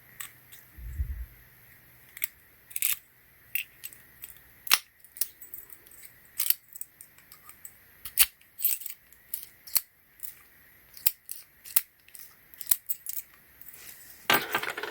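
Irregular sharp clicks and taps of small metal and plastic parts being handled: the lock-pick set and clear practice padlock. A short rustle comes near the end.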